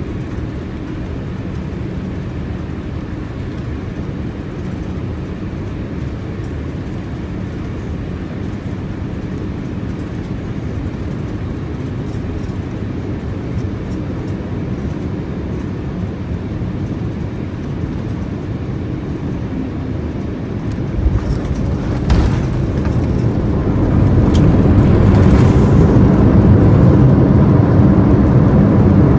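Steady cabin noise of a Boeing 787-8 airliner on final approach. About 21 seconds in, sharp knocks and a thump as the wheels touch down, then a louder, rushing low rumble from about 24 seconds as the engines go to reverse thrust and the jet brakes on the runway.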